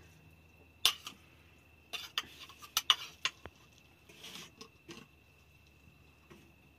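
Metal utensils clinking and knocking against a cooking pot: several sharp, separate clinks spread over a few seconds.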